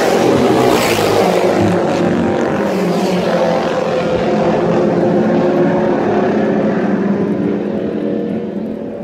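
Classic racing motorcycles passing close by at speed, one going past about a second in. Their engines then keep running as they ride away, the note dropping in pitch and fading near the end.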